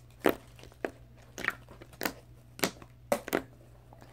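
Jiggly, glossy slime squished and worked in the hand, making a string of short wet clicks and pops, about two a second.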